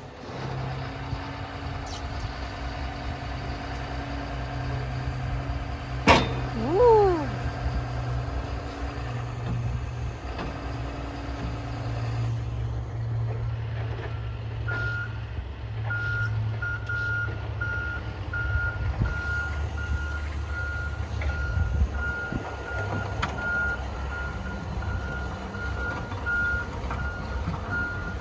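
A heavy construction machine's engine running steadily, with a sharp clank about six seconds in followed by a short falling squeal. From about halfway a backup alarm beeps at an even rate: the machine is reversing.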